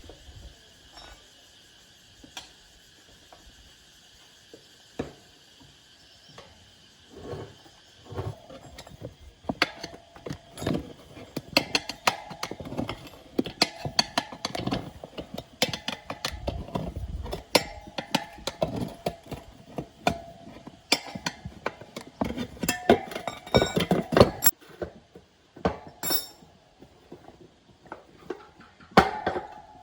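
Metal hand tools and parts clinking and knocking irregularly during motorbike tyre and inner-tube work. The clinks are sparse at first, then come thick and fast from about nine seconds in.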